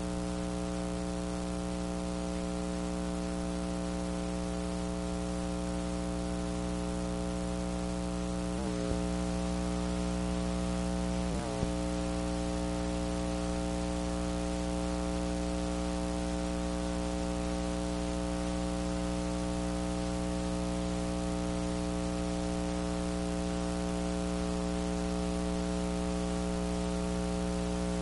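Steady electrical mains hum with hiss on a blank stretch of the recording. Two brief clicks come about nine and eleven and a half seconds in.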